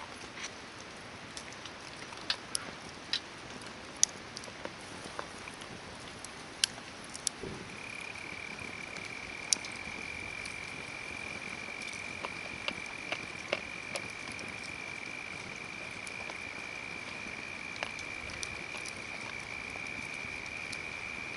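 Hardwood campfire crackling, with scattered sharp pops. About a third of the way in, a steady high whistle sets in and holds on unbroken to the end.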